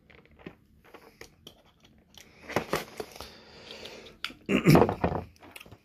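Cardboard collector's figure box being handled and opened: light scattered clicks and taps, then crinkling and tearing as the flap and its seal are worked open, loudest about three-quarters through.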